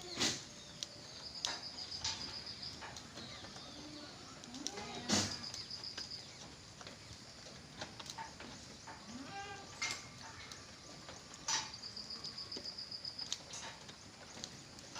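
Goats bleating now and then, with a few sharp knocks and a high rapid trill that comes three times.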